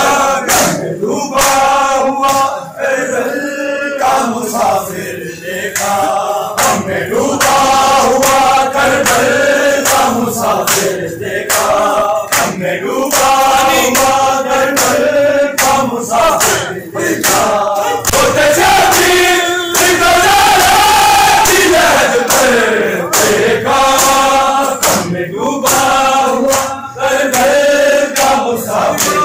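A crowd of male mourners chanting a Punjabi noha (Shia lament for Karbala) together, with repeated sharp chest-beating slaps (matam) falling through the singing.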